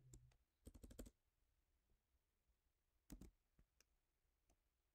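Faint computer keyboard keystrokes: a short cluster of clicks about half a second in, another about three seconds in, and a couple of single taps after, over near silence.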